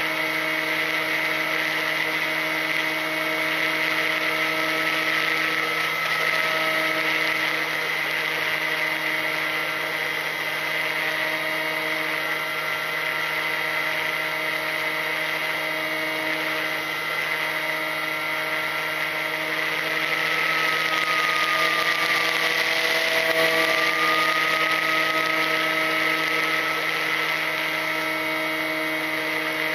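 Electric motor and propeller of a Ranger EX FPV plane whining steadily, heard through its onboard camera, with a rush of air over it. About two-thirds of the way through, the air rush grows louder and one tone of the whine dips and rises again.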